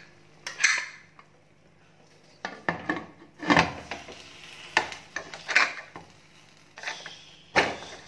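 Aluminium pressure cooker lid being put on and closed: a string of irregular metal clanks and scrapes as the lid knocks against the pot and is worked into place.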